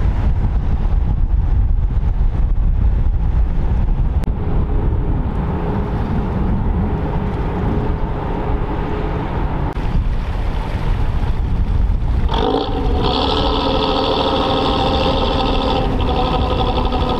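Wind buffeting the microphone over the low rumble of boat engines on the water. About twelve seconds in, music starts suddenly and carries on to the end.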